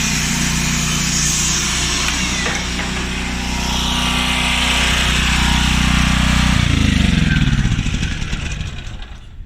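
Vacuum cleaner running with a steady motor hum and rushing air, then switched off about seven seconds in, its motor winding down in falling pitch.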